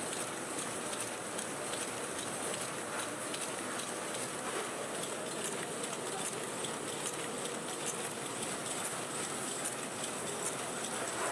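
Matchbox-making machinery running: a steady mechanical clatter with repeated short clicks.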